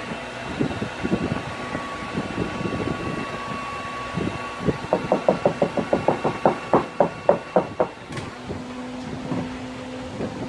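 Steady whir of a heat gun with a quick run of sharp taps in the middle, about five a second for some three seconds. A click about eight seconds in, after which the hum changes pitch.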